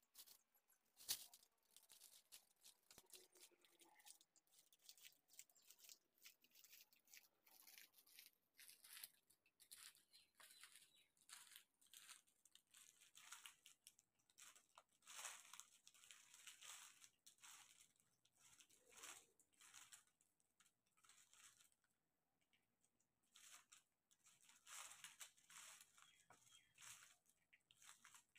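Faint, irregular ticks and crinkles of diamond painting: a drill pen picking resin drills out of a plastic tray and pressing them onto the sticky canvas, with its plastic film rustling. One sharper click about a second in.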